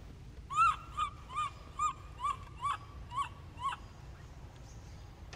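Baby macaque giving a quick series of eight short cooing calls, each rising and falling in pitch, about two a second, then stopping.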